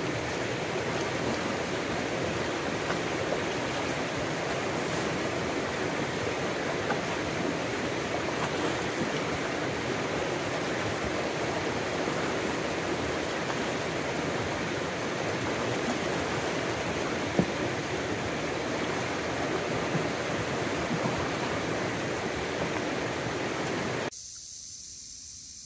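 Creek rapid rushing steadily: a continuous wash of whitewater over rocks. Near the end it cuts off abruptly to a much quieter background hiss.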